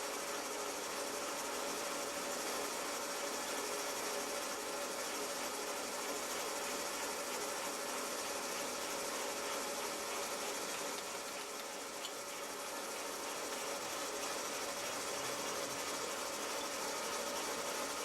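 A new metalworking lathe running steadily while its tool takes a cut along a turned workpiece: an even mechanical whir with a few steady tones.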